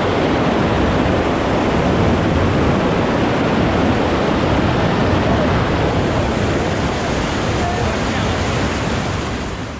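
White-water river rapids rushing loudly and steadily as churning water pours over rocks close to the microphone, easing slightly just at the end.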